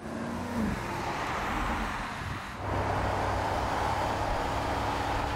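Audi SQ8's 4.0-litre twin-turbo V8 running as the car drives along, its note dropping briefly as it goes past. From about two and a half seconds in it settles into a steady engine and road drone at cruising speed.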